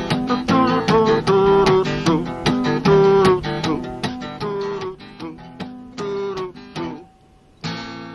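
Background music of acoustic guitar, strummed chords with plucked melody notes in a steady rhythm. It thins out and nearly stops about seven seconds in, then a new chord rings out near the end.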